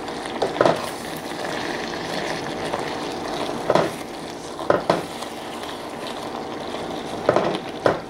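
Creamy sauce of chile strips, sour cream and melted cheese bubbling at a boil in a frying pan while a wooden spatula stirs it, with a few short scrapes of the spatula against the pan.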